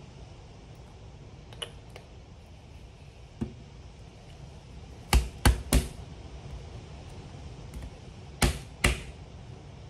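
Sharp taps and knocks of hands, cards and small craft supplies on a tabletop cutting mat: a couple of light taps, then three loud knocks in quick succession about halfway through and two more close together near the end.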